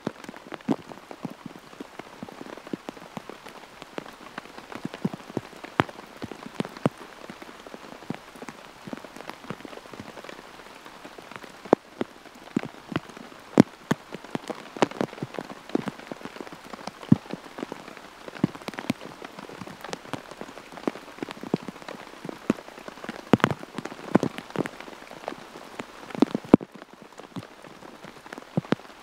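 Steady rain, with many large drops tapping irregularly and close.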